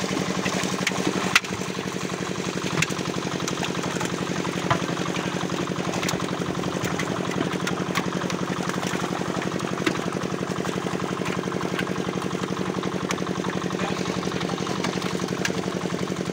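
A small engine running steadily with a fast, even beat, over splashing from fish thrashing in a net drawn close to the bank, with occasional sharp knocks.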